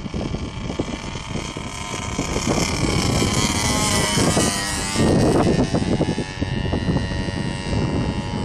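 Radio-controlled Edge 540 aerobatic model plane's motor and propeller whining in flight, the pitch sliding down around the middle as it passes by. Heavy wind buffets the microphone, loudest about five seconds in.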